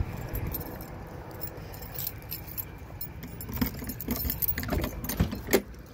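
A ring of keys jangling in hand while a key is worked into the camper's door lock, jingling thickest in the last couple of seconds, with one sharp click about five and a half seconds in.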